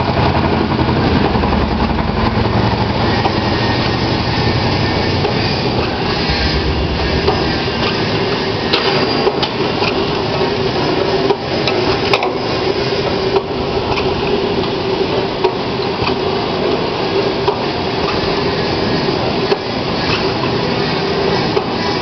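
Paper bag forming machine running: a steady, dense mechanical clatter from its rollers and drive, with a steady hum joining about six seconds in and a few sharp clicks.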